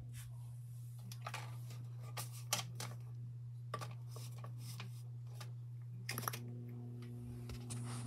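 Scattered clicks and knocks from handling a Lasko B20201 box fan, over a steady low hum. A cluster of clicks comes about six seconds in, after which the fan's motor starts with a humming tone and the rush of air begins to build near the end.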